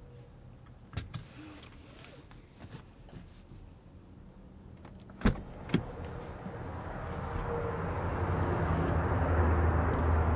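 Two sharp clicks of a 2020 BMW X5's driver's door being unlatched about five seconds in, after a quiet stretch with a few small clicks. As the door swings open, the noise from outside, with a low hum, grows steadily louder.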